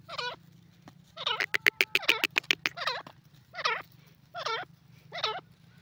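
Grey francolin calling: short harsh notes, a single one at the start, then a quick chattering run about a second in, then single notes roughly every 0.8 seconds.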